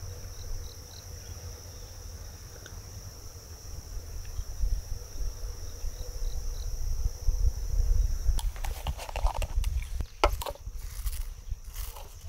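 Insects chirring steadily in the grass, with a low wind rumble on the microphone. From about eight seconds in, a run of sharp clicks and clinks from a metal spoon working in a glass jar beside a camp pot.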